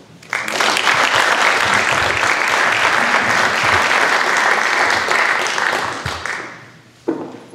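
Audience applauding for about six seconds, then dying away, with a sudden thump just after it fades.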